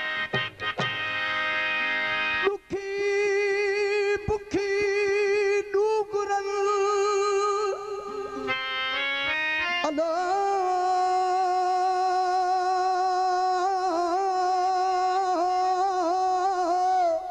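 Sindhi Sufi kalam: a male singer draws out long held notes with a wavering vibrato, rising to a higher sustained note about halfway through, over a harmonium. A few dholak strokes land in the first half.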